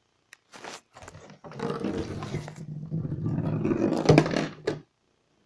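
Clear plastic hamster ball rolling across the floor of an empty acrylic bathtub. It starts as a few short bursts, then rolls continuously for about three seconds and stops abruptly.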